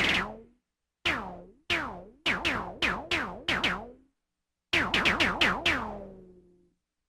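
Synthesized sci-fi laser weapon shots, each a sharp zap with a wobbling, falling tone. A few single shots come first, then two rapid strings of about five or six shots. The last shot trails off in a long fading tone.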